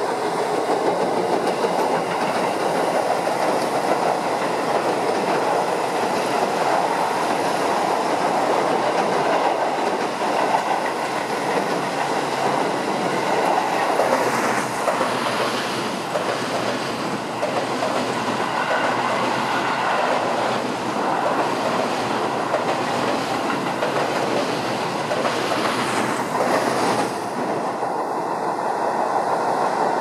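Keio 7000-series electric commuter trains running across a steel-girder railway bridge and along the track past close by, a steady train noise of wheels on rail.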